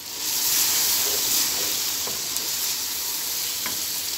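Chicken pieces frying in hot oil in a karahi, sizzling loudly as yogurt is stirred in with a wooden spoon; the hiss swells suddenly about a third of a second in, then eases slightly.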